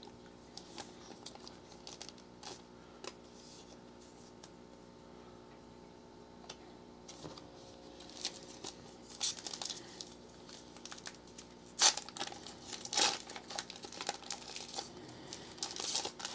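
Soft ticks of trading cards being handled and laid on a table, then, from about halfway, the crinkling and tearing of a foil trading-card pack wrapper being opened, with a few sharp crackles.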